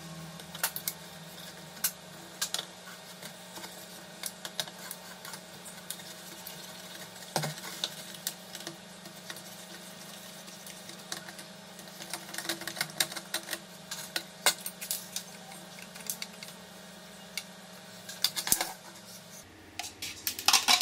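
Small irregular clicks and taps of pliers and fingers working the plastic and metal parts on the back of a Fiat 128 instrument cluster. Near the end comes a brief clatter as small metal washers are dropped into a plastic cup.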